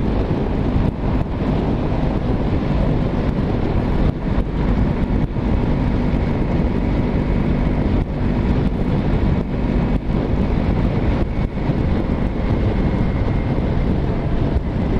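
Motorcycle engine running at a steady cruising speed, its note holding even, under heavy wind rush on the rider's microphone.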